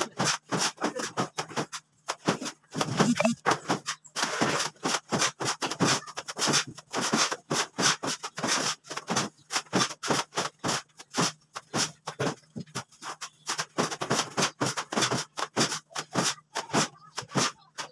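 Wet cement mortar being scooped with trowels and thrown by hand onto a concrete ceiling: a fast, uneven run of short scrapes and slaps.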